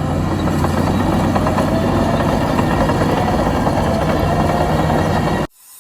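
Heavy construction machine's engine running steadily with a deep hum. It cuts off abruptly near the end.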